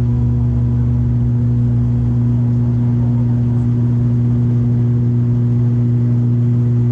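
Steady drone of an ATR 72-600's turboprop engines and propellers heard inside the cabin: a strong, even low hum with an overtone an octave above, unchanging throughout.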